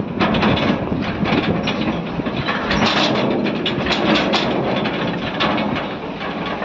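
Engine of a motor vehicle running steadily while under way, with road and wind noise on the microphone.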